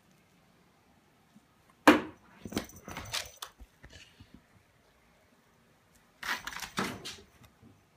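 A sharp knock about two seconds in, followed by a second or so of rattling clicks, and another burst of rattling clicks about six seconds in.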